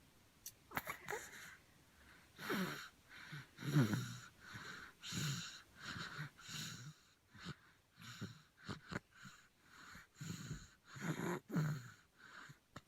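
A sleeping child snoring, with noisy breaths repeating about every second or so, each carrying a low tone that falls in pitch. This is the sound of breathing obstructed during sleep, which the doctor links to the child not getting enough oxygen to the brain.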